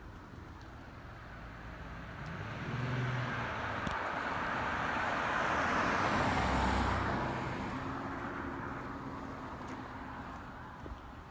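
A car driving past, its noise building to a peak about six or seven seconds in and then fading away.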